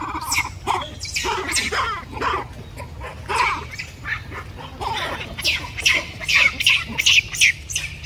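Monkeys giving short, high-pitched squealing calls that drop in pitch, scattered at first and coming quickly, about two to three a second, from about halfway through.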